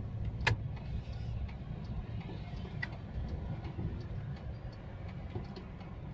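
Steady low road and engine rumble inside a moving pickup truck's cabin, with one sharp click about half a second in and a few faint ticks.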